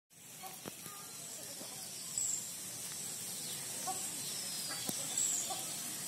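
Outdoor ambience: a steady hiss with two short, high-pitched bird chirps, one about two seconds in and one near the end, and a few faint clicks.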